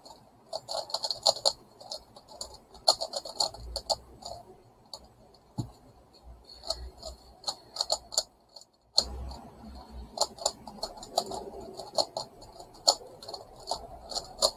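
A megaminx puzzle turned quickly by hand in a speedsolve: rapid, irregular plastic clicks and clacks as the faces are turned, coming in bursts, with a brief break a little past the middle.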